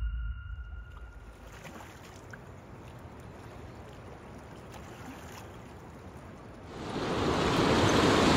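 River water rushing over rocks, faint at first, then swelling much louder about seven seconds in. The last of a music track dies away in the first second.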